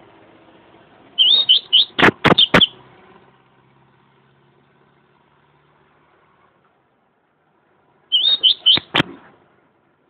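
Caged double-collared seedeater (coleiro) singing two short bursts of quick, high whistled notes, about a second in and again near the end, with a few sharp clicks among the notes. The bird is kept for the beira-mar song type.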